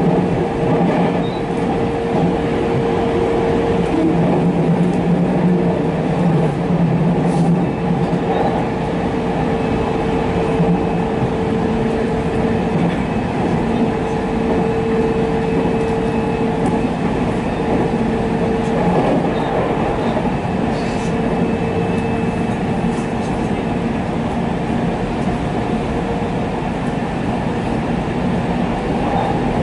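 Electric commuter train running along the line, heard from inside the front cab: a steady rumble of wheels on rails with an even hum.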